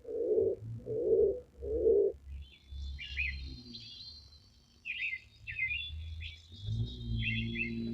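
A pigeon cooing, a run of low evenly spaced notes for about two seconds. Then small birds chirp in short high clusters, with a low rumble under the chirps near the end.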